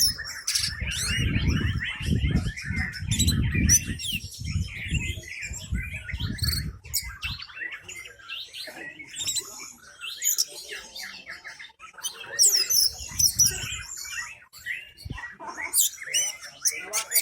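Orange-headed thrush singing a continuous run of varied, rapid whistles, trills and chirps. A low rumble runs under the song through the first half and returns briefly near the end.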